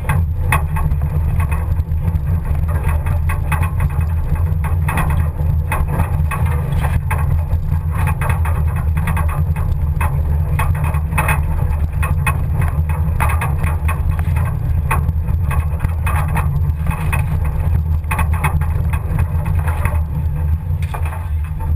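Pinzgauer off-road vehicle driving along a woodland track: a steady low engine drone with frequent knocks and rattles over the bumps.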